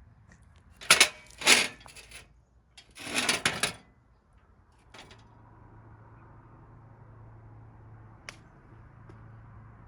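Loud mechanical clacks and a rattle, then a sharp click after which a low steady hum sets in, with one more click later on.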